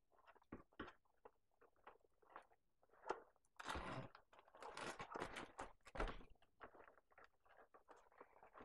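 Faint, irregular crackling and rustling of cardboard and plastic toy packaging being handled as a tie holding the toy is cut free. The crackling is densest in the middle.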